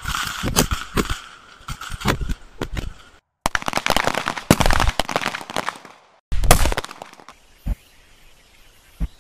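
Pistol gunfire on a firing range: rapid, overlapping shots from several shooters, cut off abruptly twice, then only a few scattered shots near the end.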